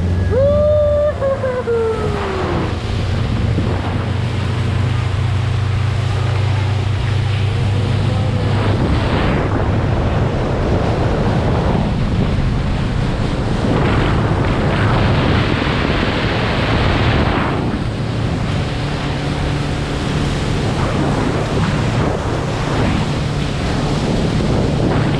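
Fishing boat's engine running under way, its low drone shifting in pitch a couple of times, under heavy wind buffeting the microphone and water rushing past the hull.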